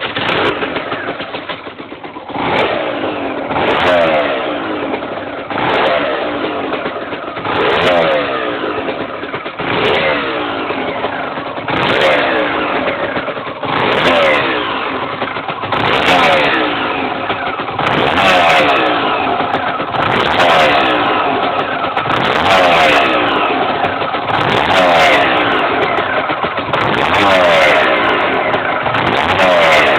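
Aprilia RS 125 two-stroke single-cylinder engine being blipped about every two seconds, each rev rising sharply and then falling back toward idle; the owner believes it is making a suspicious noise.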